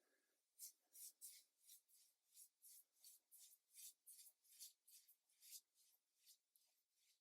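Faint, quick strokes of a paintbrush rubbing across cotton watercolour paper, a dry swish about three to four times a second, starting about half a second in.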